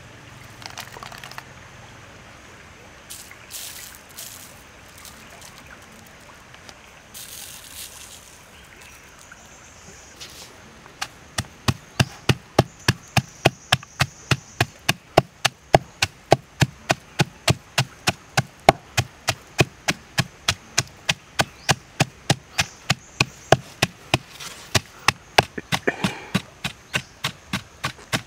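Wooden pestle pounding chillies, garlic and salt in a wooden mortar: after about ten seconds of soft handling sounds, steady knocks start, about two a second, and keep going.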